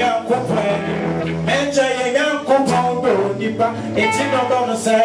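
Live gospel worship music: women's voices singing together over a band of electric guitar, bass and drums.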